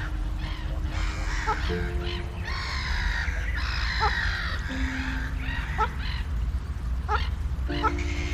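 Birds calling, harsh caw-like calls mixed with short rising chirps, over background music of held, slowly changing notes, with a steady low rumble underneath.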